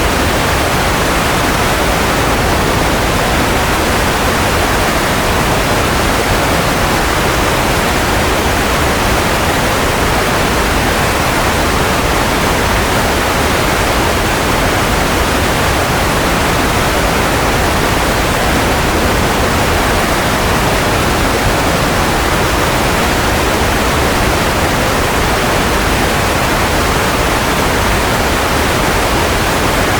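Steady white noise: an even, unchanging hiss, strongest in the middle pitches, with no tones, rhythm or breaks.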